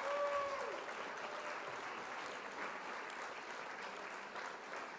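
Applause from a crowd, steady clapping with a few short voiced calls in the first second, slowly growing quieter.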